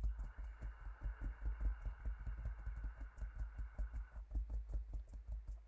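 Fingertips of both hands tapping rapidly and evenly on the collarbone points in EFT tapping, a steady run of dull thuds. A faint steady hum underneath stops about four seconds in.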